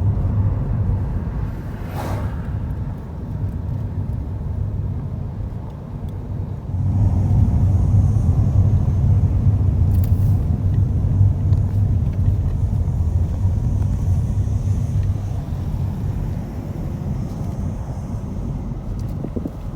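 Steady low rumble of a car driving, engine and road noise heard from inside the car; it grows louder about seven seconds in.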